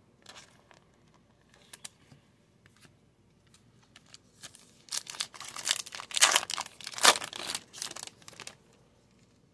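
A trading-card pack's plastic wrapper being torn open and crinkled, loud and crackly for a few seconds in the second half, after faint rustling of plastic and cards.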